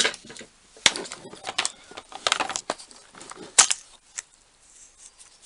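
Small rotary-tool accessories and their case being handled: irregular clicks and rattles, sharpest about a second in and again about three and a half seconds in.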